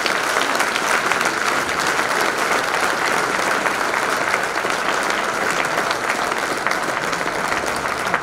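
Audience applauding: many hands clapping together, steady and sustained.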